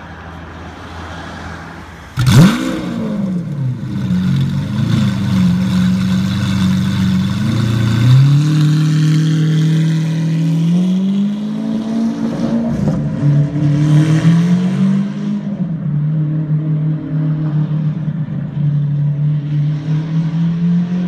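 Lamborghini Aventador V12 starting up with a sudden loud flare of revs about two seconds in, then settling into a high idle. The engine note then rises and falls through gentle revs as the car pulls away at low speed.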